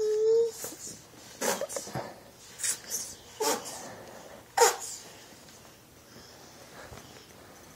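A toddler's voice: a brief hummed note at the start, then about six short, breathy puffs of air over the next few seconds, the one just under five seconds in the loudest.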